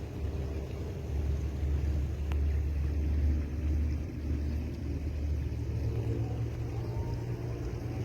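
Boat engine running steadily with a low, droning hum; its pitch steps up a little about five seconds in as the engine speeds up.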